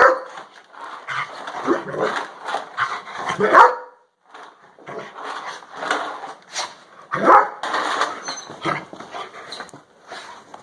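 Shepherd dog barking repeatedly in short, irregular bursts, with a brief pause about four seconds in.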